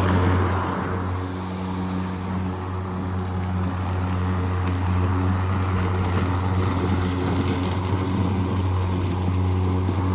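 Ryobi 20-inch 40-volt brushless battery lawn mower running: a steady motor-and-blade hum with a strong low tone. It eases slightly about a second in, then holds steady.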